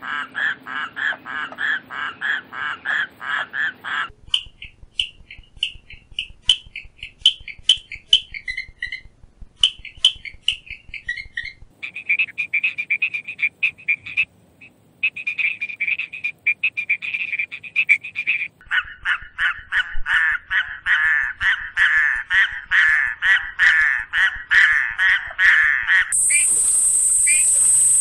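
A run of frog calls from several species, each cutting off abruptly into the next. First the Cape river frog, a rapid pulsed croak of about four pulses a second. Then the clicking stream frog's sharp spaced clicks, the banded stream frog's rapid trills in two bursts, and the raucous toad's long dense pulsed call, with a steady high hiss and a few chirps setting in near the end.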